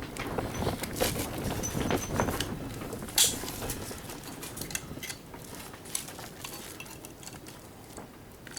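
Small metal parts of an old Rival electric can opener clinking, scraping and rattling as it is pulled apart by hand, with one sharper click about three seconds in.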